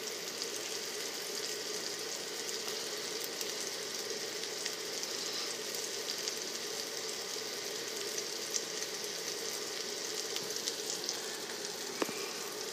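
Frozen hamburger patties sizzling steadily in an ungreased pan on an induction cooktop, with small scattered pops and crackles.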